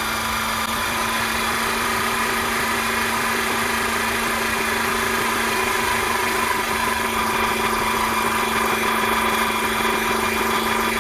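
Vevor 5-ton 12-volt electric hydraulic car jack's motor and pump running steadily, driving the ram up to its full height with no load on it. A constant-pitched hum with an even rattle.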